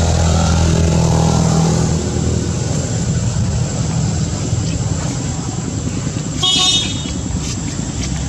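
A steady low engine hum from a motor vehicle running, with one brief high-pitched sound about six and a half seconds in.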